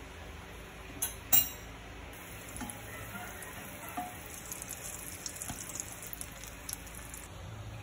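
Butter sizzling as it melts and foams in a nonstick frying pan, the sizzle stopping shortly before the end. Two sharp clicks come about a second in.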